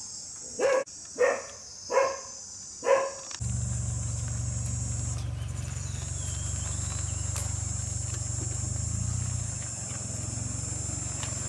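A dog barks four times in the first three seconds over a steady high insect drone. About a third of the way in, a steady low rumble takes over and runs on under the drone.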